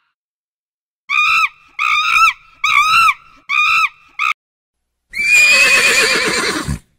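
Five short, high calls about two thirds of a second apart, then a horse whinnying once for under two seconds, its pitch wavering and falling.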